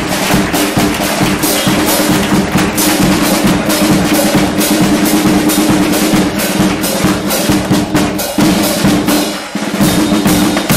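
A carnival group's instrumental passage: bass drum and snare drum beat a steady, busy rhythm under strummed Spanish guitars and sustained pitched tones. The music stops abruptly near the end.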